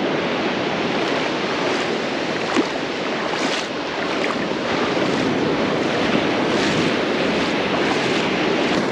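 Ocean surf breaking and washing steadily onto a sandy beach, with wind on the microphone.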